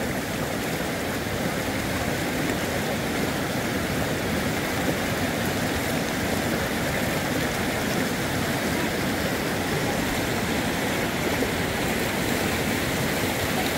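Strong, fast-flowing river current rushing steadily, an unbroken wash of whitewater noise.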